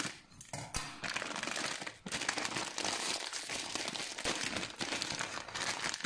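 Plastic instant-noodle packet crinkling and rustling as it is handled and opened by hand, in irregular crackly bursts with a brief lull about two seconds in.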